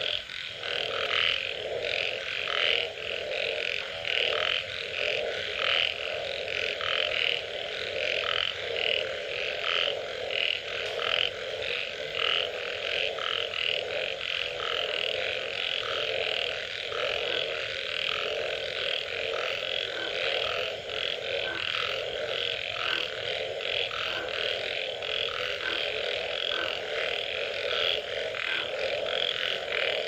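A dense chorus of many frogs calling after rain, continuous and overlapping: a lower steady band of croaking with higher, rapidly pulsed calls over it.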